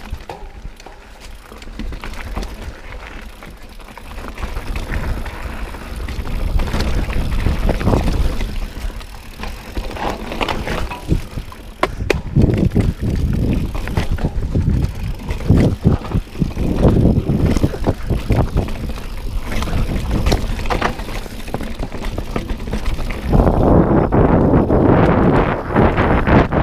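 Mountain bike ridden fast down rooty dirt singletrack: tyres rumbling over the ground, with frequent knocks and rattles from the bike as it hits bumps and roots. The noise thickens near the end as wind buffets the microphone at speed.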